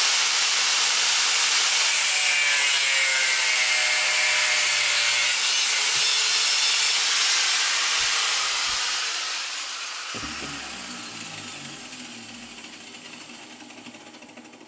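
An angle grinder's cutting disc slicing through a threaded steel bolt held in a vise, a loud, steady grinding screech. About eight seconds in the grinder is switched off and winds down, its whine slowly falling and fading away.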